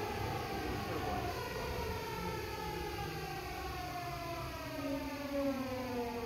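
Seibu 6000 series train's Hitachi GTO-thyristor VVVF inverter whining in a steadily falling pitch as the train slows, over the running rumble of wheels on rail.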